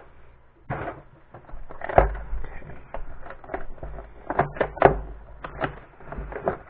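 Unboxing a small drone kit: a string of short clicks, knocks and crinkles as packaging and parts are handled, with one heavier thump about two seconds in.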